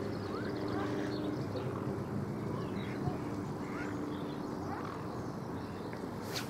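Outdoor ambience: a steady low hum with faint, short chirping bird calls, and one sharp click near the end.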